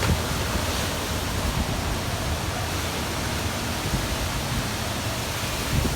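Hurricane wind and heavy rain, a loud steady rush with gusts buffeting the microphone.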